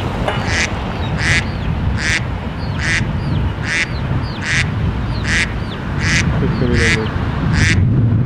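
A bird gives a harsh call over and over at an even pace, about ten calls in all, roughly one every three-quarters of a second, over a low steady rumble.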